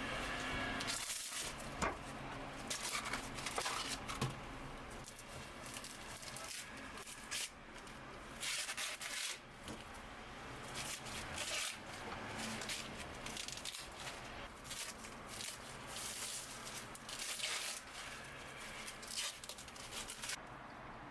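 Handling noises: irregular rustling and crinkling with scattered light clicks and knocks.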